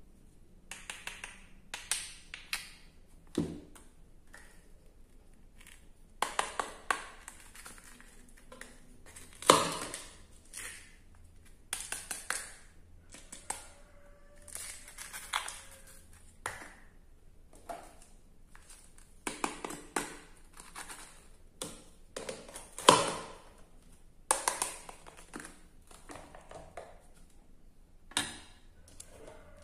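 Plastic toy fruit being cut apart with a wooden toy knife and handled: an irregular string of sharp clicks, taps and knocks of plastic pieces against each other and the play board, two of them much louder than the rest.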